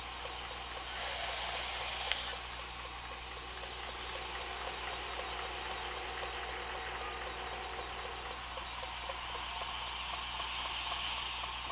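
Belt grinder running steadily with a fine 5X Norax polishing belt of about 1200–1300 grit, as a knife edge is polished toward a mirror finish. A brief louder hiss comes in about a second in, as the blade is pressed to the belt, with a sharp click just after two seconds.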